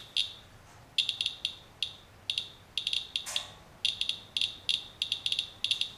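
Inspector handheld Geiger counter's audio chirping with irregular, randomly spaced clicks, often several in quick clusters, each click one detected count. It is counting radiation from a rain-wipe sample under a plastic sheet, which the operator takes to be beta and gamma.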